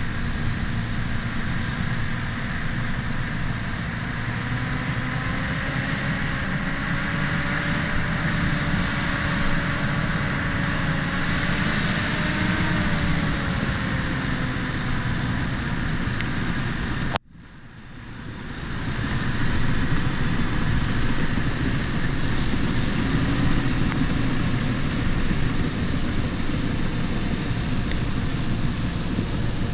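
Bulldozer's diesel engine running steadily, its pitch wavering a little about twelve seconds in. A little past halfway the sound cuts out abruptly, then swells back up over a couple of seconds to the same steady running.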